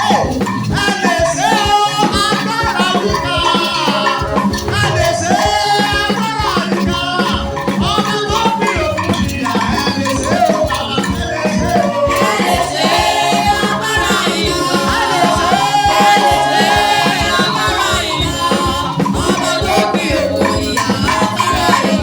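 Lively praise music with a fast, steady drum beat, a shaker rattling along, and a melody over it.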